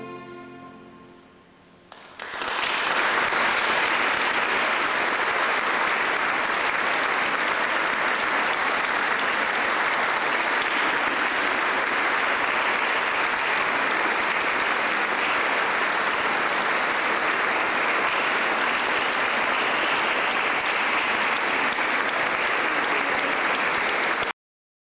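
The last held chord of a string chamber orchestra fades away, and about two seconds in an audience breaks into steady applause, which cuts off suddenly near the end.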